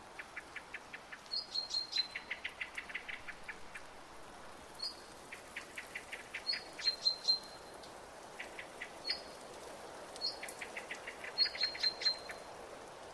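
Birds calling: quick runs of rapid chirps, repeated every second or two, each with a short higher note, over a steady outdoor hiss.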